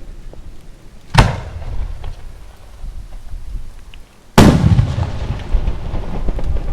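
Aerial firework shells bursting: a sharp bang about a second in, then a louder bang about four seconds in that rolls on into a long rumbling echo, over a steady low rumble.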